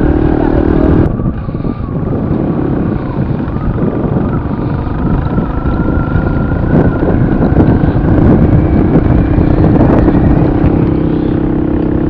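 Motorcycle engine running on the move, with wind rumbling on the camera microphone. The engine eases off about a second in, then builds again as the bike rides on.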